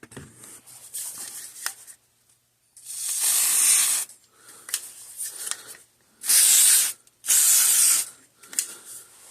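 Aerosol can of contact cleaner spraying onto a corroded circuit board: three hissing bursts, the first about a second long, the other two shorter and close together near the end, with quieter handling noise between.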